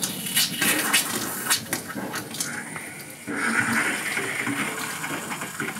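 Water running from a sailboat's galley faucet into a stainless steel sink, fed by the boat's pressure water system, with a few sharp knocks in the first couple of seconds. The rush of water gets louder about three seconds in.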